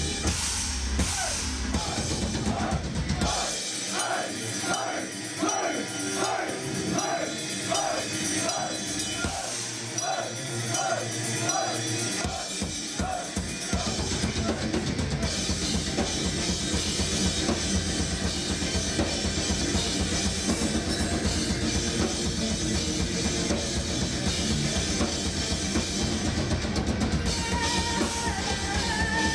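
A metal band playing live, with drum kit, cymbals and bass drum over the guitars. A few seconds in, the low end drops away and a repeating melodic figure carries on alone, before the full band with drums comes back in about halfway through.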